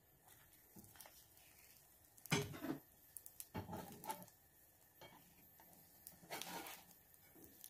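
Spatula scraping and knocking against a nonstick frying pan as it works under the edge of a frying egg to loosen it. There are three short bouts of scraping, and the loudest comes about two and a half seconds in.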